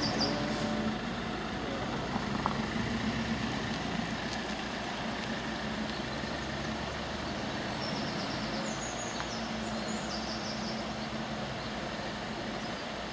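An engine running steadily, a low even hum with no revving. Short high chirps, like birdsong, come in briefly about nine seconds in.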